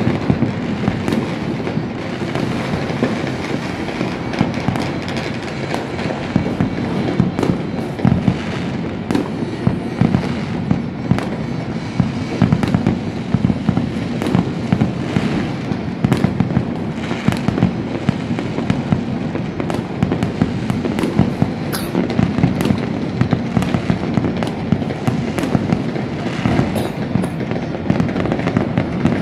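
Many fireworks going off across a city at once: a dense, continuous crackling and popping with frequent sharp bangs. It is the midnight New Year's barrage.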